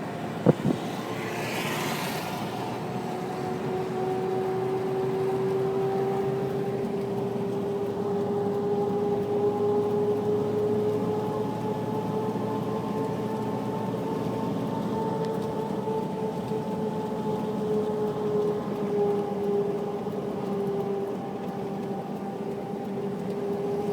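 A motor running steadily, its hum drifting slowly up and down in pitch, with a couple of sharp knocks in the first second.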